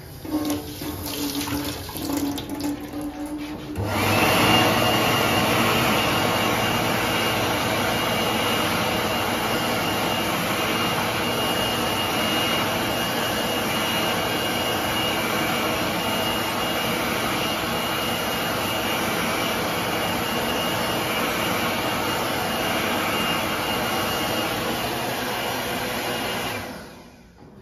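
2021 Supreme BA101 sensor hand dryer switching on about four seconds in and blowing steadily, a rush of air with a faint high whine and a low hum, then stopping near the end once the hand is taken away.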